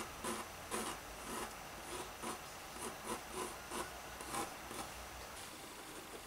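Pencil sketching on a drawing board: a run of quick, scratchy strokes, about two or three a second, dying away near the end.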